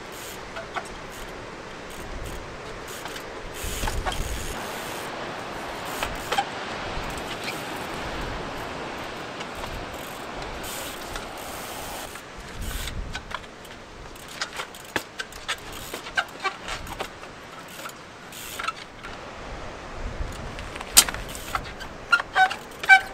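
Onza Limey IV trials bicycle hopping on boulders: a run of sharp knocks and clicks from the tyres, frame and brakes striking and gripping the rock, starting about halfway through and loudest near the end, some with a short metallic ring. Before that, a steady rush of wind and surf.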